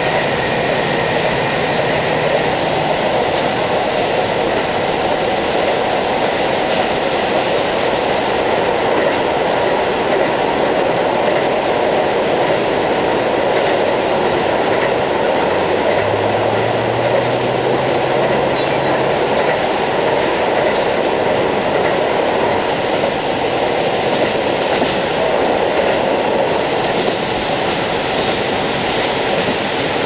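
Interior running noise of a JR Hokkaido KiHa 40 diesel railcar with its N-DMF13HZI diesel engine: a steady rumble of engine and wheels on rail. A low drone rises in pitch for a few seconds about halfway through.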